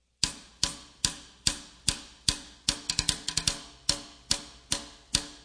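Background music with a steady percussive beat: sharp hits about two and a half a second, each dying away, with a quicker run of hits about halfway through.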